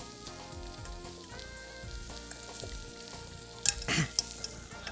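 Fish fillet frying in butter and oil in a very hot skillet: a steady sizzle under soft background music with held notes. A couple of brief knocks near the end as the pot is moved.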